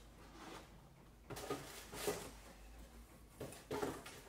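A rigid cardboard gift box being opened and a fabric dust bag lifted out: soft scraping and rustling in a few short bursts, the longest near the end.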